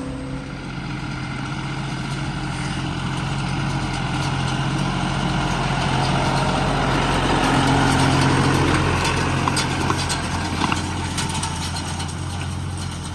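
John Deere tractor engine running steadily while pulling a round baler through a hay windrow. A rushing noise swells and peaks about two-thirds of the way in, with a scatter of light ticks and rattles near the end.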